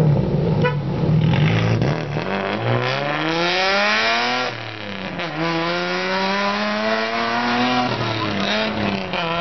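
Loud aftermarket exhaust of a Toyota GX61 Mark II's straight-six, running steadily at first, then revved up in two long rising sweeps, each ending in a sudden drop in pitch as the throttle is let off.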